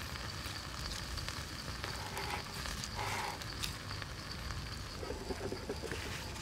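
Charcoal embers under a spit-roasted chicken, crackling and ticking with a faint sizzle, over steady outdoor background noise.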